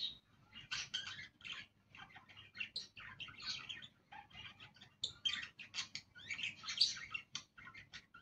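Budgerigars chattering: an unbroken, irregular run of short chirps and warbling notes.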